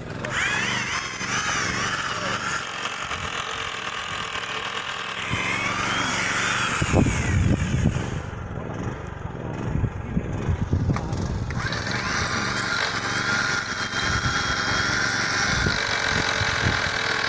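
Electric power tool running, its motor whine rising and falling in pitch, with one slow wind-down about six seconds in and a steadier run from about twelve seconds on.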